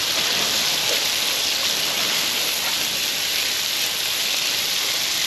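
Garlic and onions frying in hot oil in a pan, a steady sizzle.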